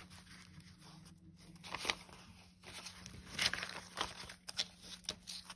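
Paper banknotes rustling as a stack of dollar bills is shuffled and sorted by hand, in several short crisp rustles.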